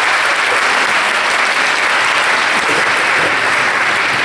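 Audience applauding, a steady clapping throughout.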